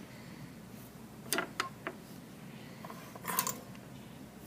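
Small cutters snipping the leads of components on a circuit board: a sharp snip about a second and a half in, followed by a couple of small clicks, and a short snap a little after three seconds.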